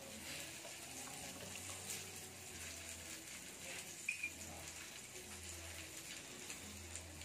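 Chicken pieces sizzling faintly on a hot stovetop grill plate as they are basted with sauce. A short high chirp comes about four seconds in.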